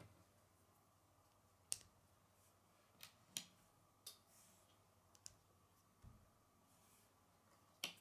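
Lego pieces clicking and snapping as small plates are pressed onto and pulled off a model: about six sharp, irregularly spaced clicks, with one duller knock about six seconds in.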